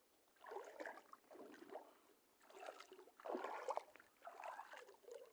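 Shallow seawater sloshing and splashing in irregular surges, about one a second, as someone wades through it.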